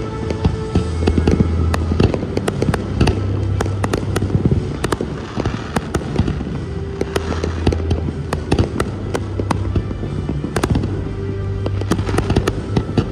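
Aerial firework shells bursting in quick succession, many sharp bangs and crackles, over loud music with held notes and a heavy bass.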